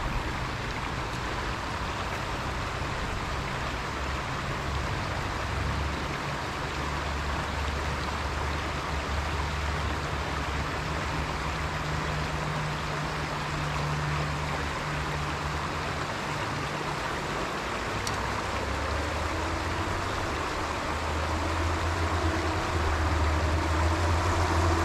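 Creek water rushing steadily over and around a jam of fallen logs, with a low rumble underneath.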